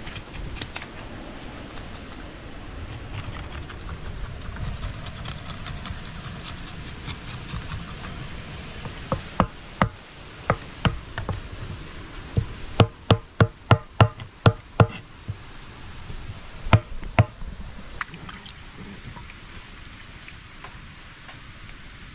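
Knife chopping on a cutting board: a series of sharp knocks with a short ring, scattered at first, then a quick run of about three a second, then two more. Before the knocks a low steady noise runs under it.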